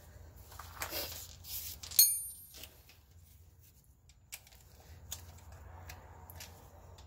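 Metal parts and tools being handled: a few scrapes and clicks, then one sharp, ringing metallic clink about two seconds in, followed by a few faint ticks.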